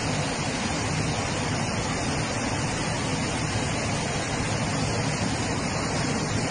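Flash-flood water rushing through a street as a fast torrent: a steady, unbroken rush of water.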